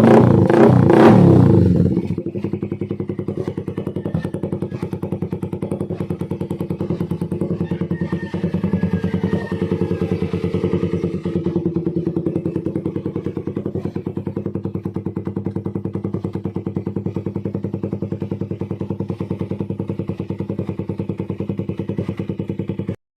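Suzuki Raider 150's single-cylinder four-stroke engine through an aftermarket exhaust pipe: loud revs for the first two seconds, then idling steadily with a rapid, even putter. The sound cuts off suddenly near the end.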